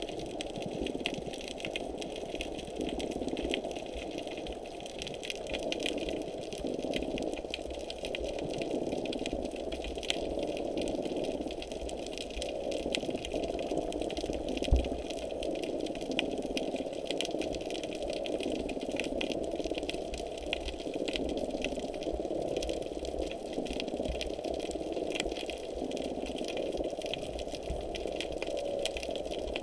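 Small underwater vehicle's motor running steadily underwater, heard through the camera housing, with a constant crackle of small clicks. A single sharp knock about halfway through.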